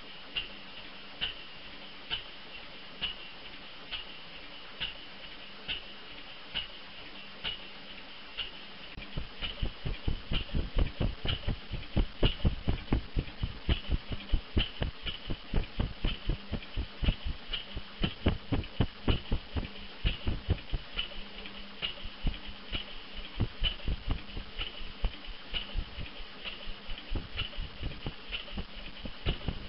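Friend Mfg Co stationary gas engine running: a light tick about once a second at first, then from about nine seconds in a quick run of firing thumps, several a second and uneven in strength, with the ticking carrying on over them.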